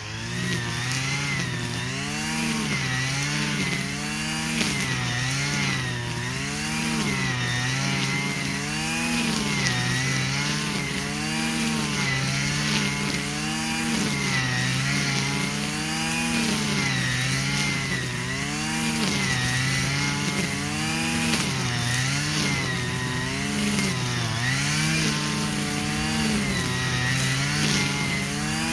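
Stihl FS 120 brush cutter's two-stroke engine running continuously, its speed rising and falling over and over, roughly once a second.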